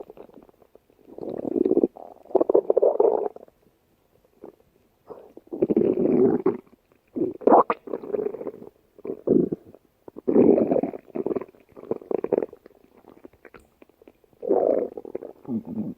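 Cartoon stomach-growl sound effect: a hungry belly growling about seven times, each growl a second or two long, with short pauses between.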